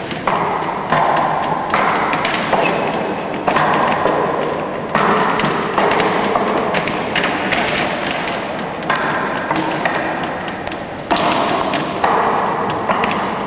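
Wooden knocks and thuds of forearms and palms striking the arms and trunk of a Wing Chun wooden dummy, with a hit every second or so. Each hit rings on in an echoing room.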